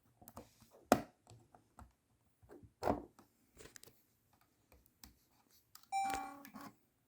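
Handling clicks and knocks from a Sony Handycam DCR-DVD92 camcorder as its lens cap comes off and it is powered on, with one sharp click about a second in. Near the end the camcorder gives a short electronic beep.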